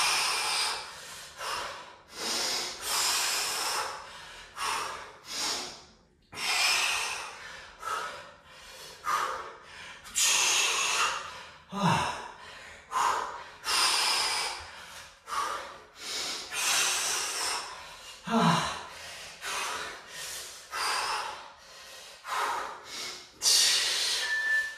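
A man's forceful breathing under exertion during kettlebell upright rows, a hard breath about once a second, with two short grunts partway through. An interval timer beeps once near the end.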